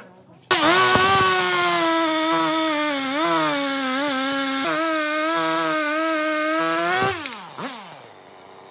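Husqvarna two-stroke chainsaw cutting through a log at full throttle, starting suddenly about half a second in, its engine pitch sagging and recovering as the chain bites into the wood. About seven seconds in the throttle is released and the engine winds down toward idle.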